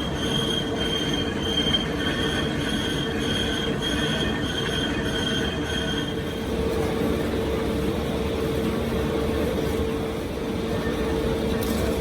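Workshop machinery running, with a high metal-on-metal squeal that pulses in a regular rhythm and stops about six and a half seconds in, leaving a steady mechanical drone with a low hum.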